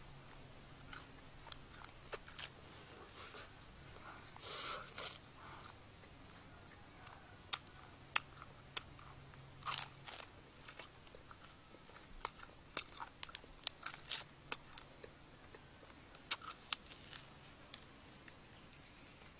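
A person biting and chewing grilled snake meat close to the microphone: many sharp wet clicks and smacks, with a couple of longer crunchy bursts about four and a half and ten seconds in.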